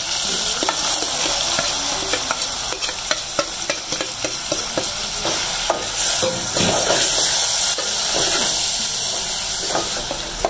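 Chopped tomatoes, green chillies and ground spices sizzling in hot oil in an aluminium pot as the masala is fried, with a steel ladle stirring and scraping against the pot in frequent short clicks.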